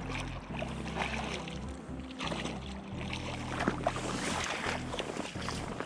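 Background music with held low bass notes that shift every second or so, under a faint rustling hiss.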